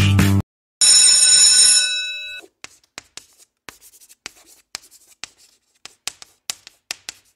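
A bell rings for about a second and a half and fades. Then comes a run of irregular chalk taps and scratches on a blackboard as words are written out.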